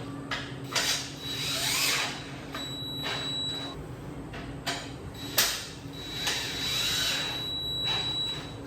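Power drill/driver running in short bursts, driving in the screws that secure the saw stand's mounting rails, with a few sharp clicks between runs.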